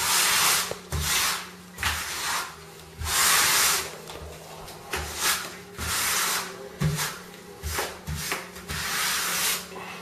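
Repeated rough rubbing or scraping strokes, about one a second, each lasting half a second to a second, some with a low thump.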